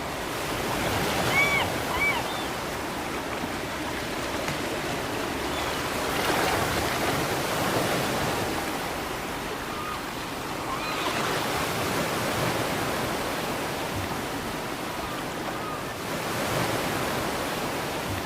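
Ocean waves breaking and washing onto a shore, the surf swelling and easing about every five seconds. Two short seagull calls come about a second and a half in, with a few fainter gull calls later.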